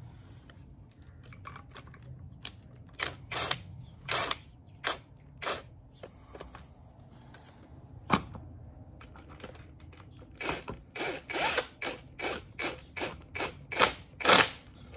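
Sharp metallic clicks and taps of hand tools on the starter motor bolts as the starter is fitted back onto the engine block, irregular at first and coming thicker and faster in the second half.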